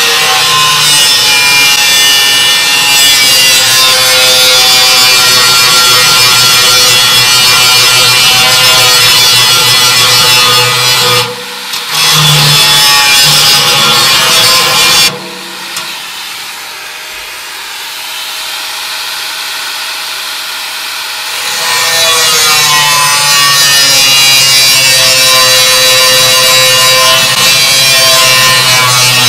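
Corded angle grinder cutting slits into the steel wall of a half 55-gallon drum: a loud, steady grinding whine. It breaks off briefly about eleven seconds in, then runs quieter for about six seconds around the middle before full-strength cutting resumes.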